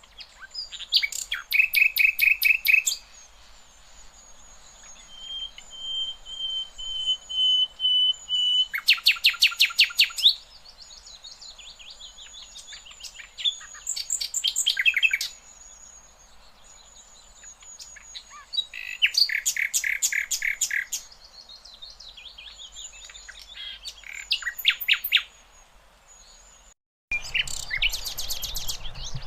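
Sikatan londo flycatcher singing loud bursts of fast repeated notes, each burst a second or two long and coming every few seconds, with one long steady whistle before the second burst. A thin, high, even tone runs between the bursts, and the sound drops out briefly near the end.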